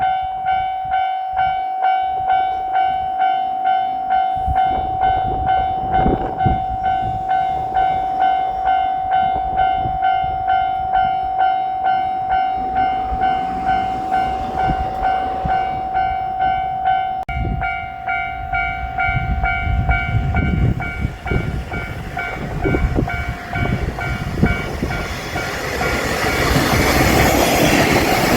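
Level-crossing warning bell ringing steadily about twice a second. It grows fainter about two-thirds of the way in as a KiHa 54 diesel railcar approaches, its running noise getting louder until near the end.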